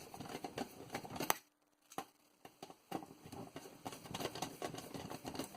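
Small irregular clicks and light rattling of a floppy disk drive's metal and plastic parts being handled during disassembly, with a second of dead silence about a second and a half in.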